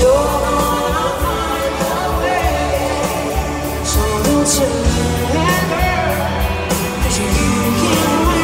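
A woman singing a pop-rock ballad live with a full band: drums, electric guitar and piano, recorded from among the audience.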